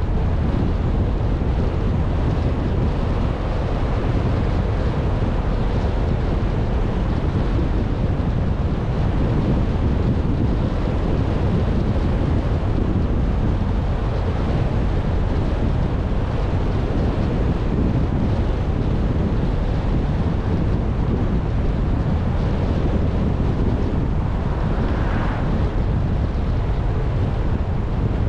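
Steady wind rumble buffeting the microphone of a camera on a moving car, mixed with road noise.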